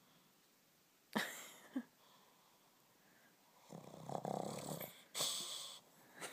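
Shih Tzu snoring in its sleep: a sudden sharp breath about a second in, then a longer snore in the middle and a brief hissing breath near the end.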